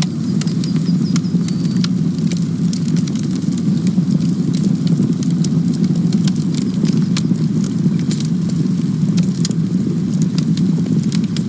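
Campfire burning, with a steady low rumble of flames and frequent sharp crackles and pops from the burning wood.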